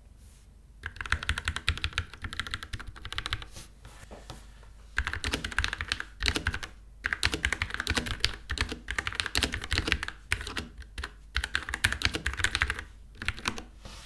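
Typing on a hand-wired 65-key mechanical keyboard with Gateron Milky Yellow linear switches and plastic keycaps topped with glued-on wood: fast runs of key clacks in about four bursts, with short pauses between.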